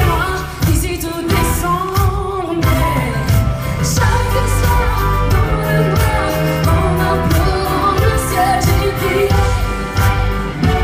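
Live pop song: a female lead singer sings over a full band with drums and bass, recorded from the audience in a concert hall.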